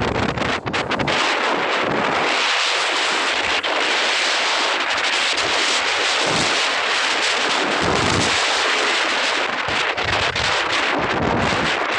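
Wind buffeting the microphone: a loud, steady rush with irregular low gusts and thumps.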